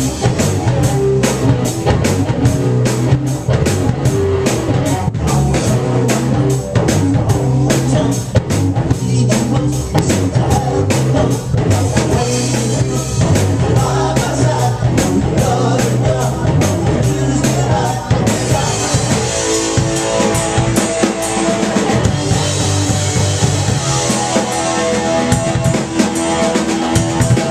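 A live rock band playing guitars and a full drum kit, with fast, steady drum and cymbal strokes. About two-thirds of the way through the drumming thins out and held guitar notes ring on.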